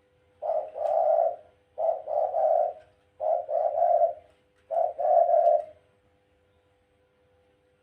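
Dove cooing: four phrases, each of two or three low notes about a second long, repeated roughly every second and a half.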